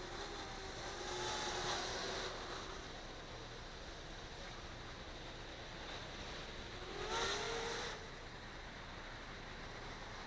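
Blade 200 QX quadcopter's motors and propellers whining faintly, the pitch gliding up and down as it holds position against the wind, over a steady rush of wind on the microphone. It swells louder twice, briefly, about a second and a half in and again about seven seconds in.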